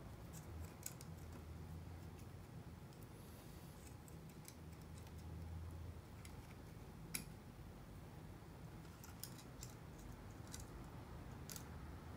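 Faint, scattered small clicks and ticks of hands working electrical wires through a motorcycle handlebar, over a low steady hum.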